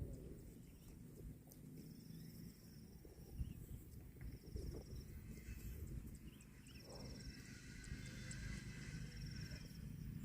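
Cow grazing: faint low rustling and soft thuds of grass being torn and chewed. A short, high, buzzing trill repeats about four times.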